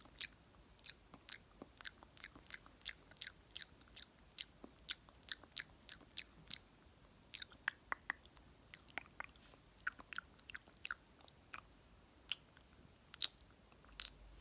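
Close-miked mouth sounds: quick wet lip smacks and kisses, about three a second, thinning to scattered smacks about halfway through.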